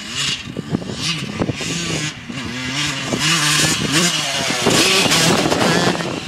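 Yamaha YZ125 two-stroke single-cylinder dirt bike engine revving up and falling back again and again as the rider works through the throttle. It grows louder as the bike comes closer, loudest about five seconds in.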